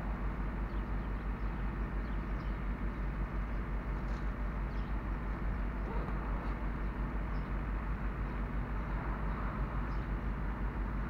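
Vehicle engine idling close by, a low, even, steady throb.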